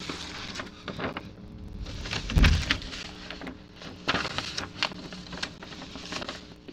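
Handling noises as fabric scraps are moved and pressed against a collage board: irregular rustles and light knocks, with a dull bump about two and a half seconds in.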